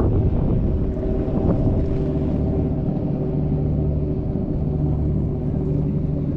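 Boat engine running steadily with a constant low hum, growing a little deeper and stronger about two seconds in.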